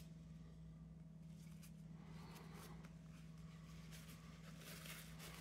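Faint rustling of a paper tissue as a headphone jack plug is rubbed clean inside it, over a steady low hum.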